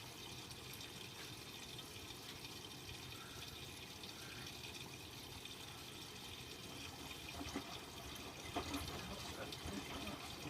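Miele W Classic WDA110 washing machine taking in water on a rinse: a faint steady hiss of water running into the drum, with a few light clicks near the end.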